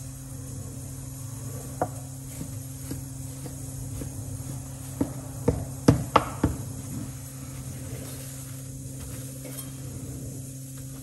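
Chef's knife cutting a soft sheet cake in a metal baking tray, the blade clicking against the tray: one click about two seconds in, then a quick run of sharp knocks about five to six and a half seconds in. A steady low hum underneath.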